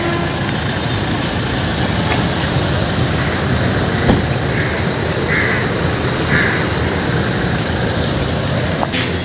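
Steady outdoor background noise of traffic, with a crow cawing a few times in the middle.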